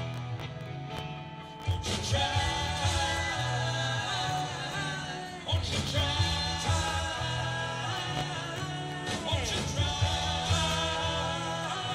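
Rock band playing, with a lead voice singing over electric guitar, bass and drums in a steady beat.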